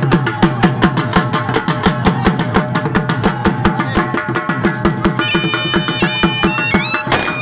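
Dhol drum played in a fast, steady rhythm, with low strokes that drop in pitch. A high melody line joins in about five seconds in.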